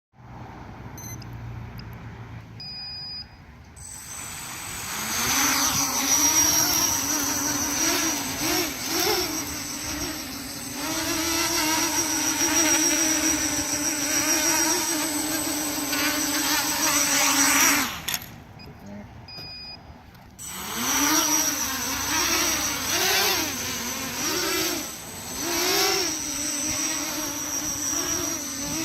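280mm FPV racing quadcopter's motors and propellers whining in flight, the pitch swinging up and down with the throttle. The whine drops away abruptly about 18 seconds in, a couple of short high beeps sound, and it starts up again about three seconds later. Short beeps also sound in the quieter opening seconds.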